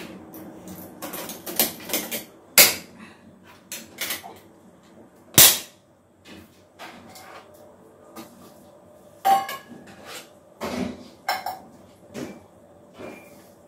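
Stainless steel tiffin boxes and lids clinking and knocking together, with a serving spoon tapping a steel pot. The two sharpest knocks come about two and a half and five and a half seconds in.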